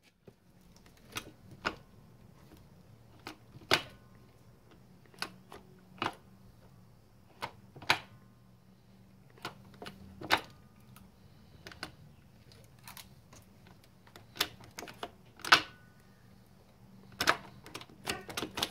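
Sharp, irregular clicks and clunks of a manual gearbox's cable-operated shift linkage as the gear lever is worked, its selector levers snapping from gear to gear. The clicks come a second or more apart, with a quick run of them near the end.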